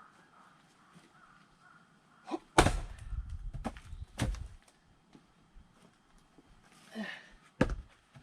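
An axe splitting a firewood log: a light tap, then a heavy blow about two and a half seconds in with a low thud, followed by a few knocks over the next two seconds as the split wood drops. A breath and one more sharp knock come near the end.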